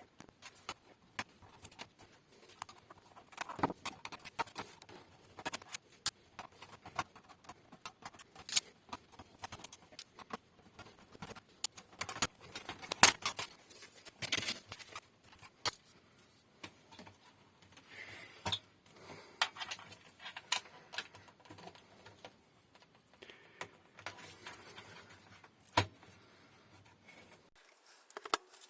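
Irregular small clicks, taps and light rattles of hands handling tools and small hardware parts on a workbench.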